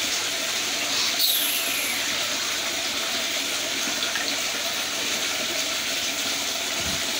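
Steady rush of running water, as a hatchery tank is filled. About a second in there is a short falling squeak.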